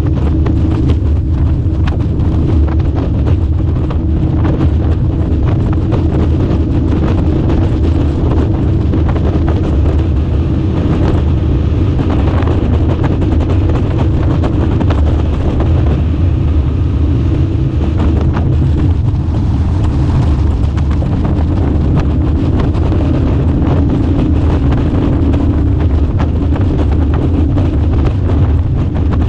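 Boat motor running steadily at speed, a constant low rumble with wind buffeting the microphone.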